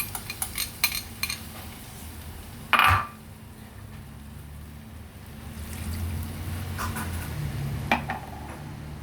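A metal spoon clinking and scraping against a cooking pot while stirring chicken curry with water just added. There is a quick run of clinks at the start, a louder ringing knock about three seconds in, and one more clink near the end.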